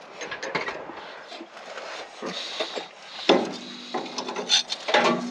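Socket and extension worked against the front tie rod and steering knuckle of a Ford Raptor, with scattered metal clicks and scraping. About three seconds in, a sharp knock is followed by a steady low motor hum.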